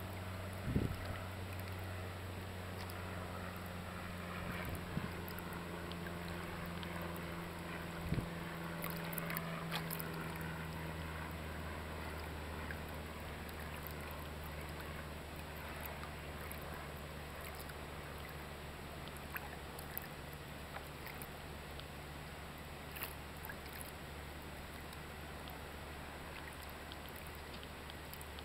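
Boat engine idling with a steady low hum, its pitch stepping slightly lower about ten seconds in, with a couple of short thumps in the first half.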